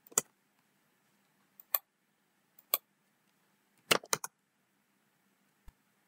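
Computer keyboard keys pressed one at a time: about six separate clicks, roughly a second apart, with a quick pair about four seconds in and a faint last one near the end.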